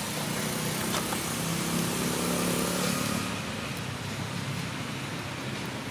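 A motor vehicle's engine, a steady hum under a broad hiss, which eases off about three seconds in.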